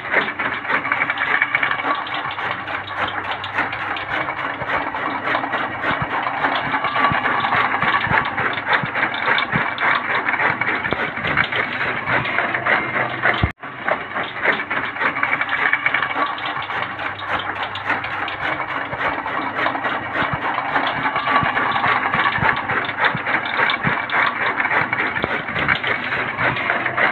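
Chaff cutter chopping green fodder: a steady mechanical rattle with rapid chopping ticks from the blades. It breaks off for a moment about halfway through.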